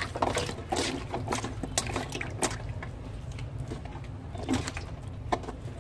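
Hands swishing peeled shallots and garlic cloves in water in a stainless steel basin: irregular splashes and light knocks, busiest in the first couple of seconds and sparser after. A steady low hum runs underneath.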